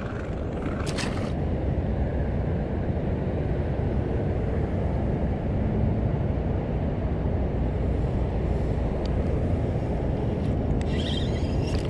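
Fishing boat's motor running steadily with the boat under way, a constant low rumble and wash of water and wind.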